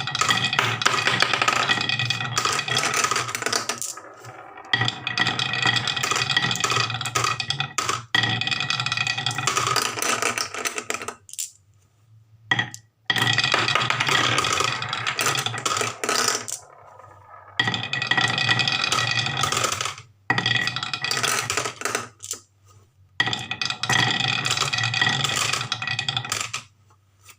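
Marbles rattling and clattering down a wooden marble run, in about seven runs of two to four seconds each, separated by short pauses.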